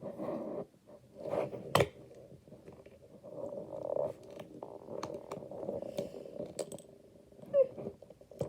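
Bead-filled slime being squished and worked by hand: soft squelching and crackling that runs for a few seconds, with a few sharp clicks.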